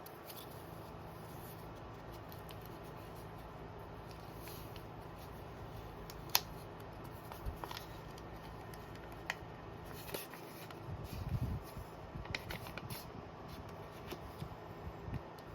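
Hands handling packaging and small items: a few sharp clicks, one standing out about six seconds in, and a spell of soft rustling near the end, over a steady low hum.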